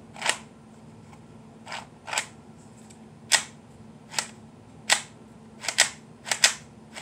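Sharp plastic clicks and clacks of a Lego-brick toy pistol being handled, its clip and moving parts clicked in and out. About ten clicks at uneven spacing, several in quick pairs near the end.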